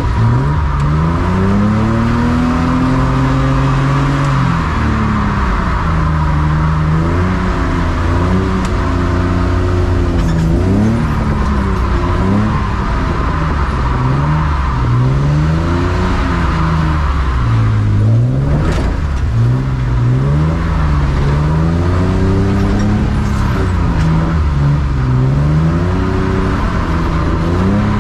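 BMW E36 drift car's engine revving over and over, its pitch rising and falling every second or two through repeated throttle and gear changes.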